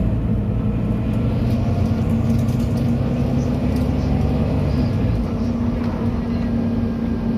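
Volvo B9TL double-decker bus's diesel engine and drivetrain running under way, heard from inside the passenger cabin as a steady engine drone over road noise. The low engine note drops away about five seconds in.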